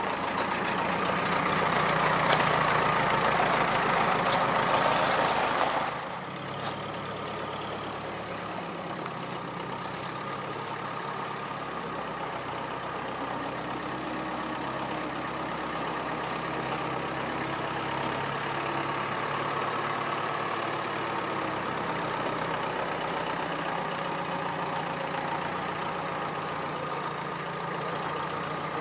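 Scammell Scarab three-wheeled mechanical horse's engine running steadily as it manoeuvres with its flatbed trailer. For the first six seconds a loud hiss covers it, then cuts off sharply.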